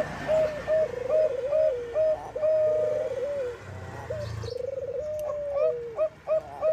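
Zebra dove (perkutut bangkok) cooing: quick runs of short clipped notes about three a second, with rolling trilled phrases that fall in pitch at the end, and a brief pause about halfway through.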